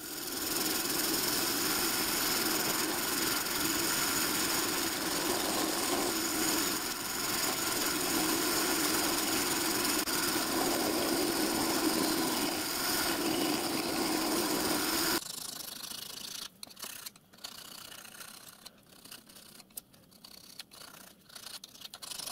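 Milling machine running, its end mill cutting a step across the end of a metal plate held in a vise: a steady machine noise with a whine that stops about fifteen seconds in. Then irregular light scraping strokes and clicks as the plate is hand-filed.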